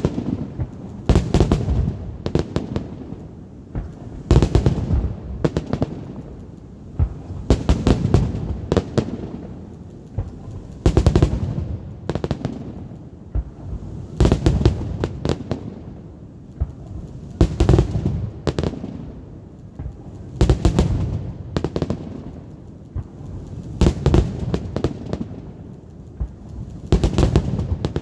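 Aerial fireworks salute: volleys of shell bursts, each a cluster of sharp bangs with low booming echoes, coming about every three seconds.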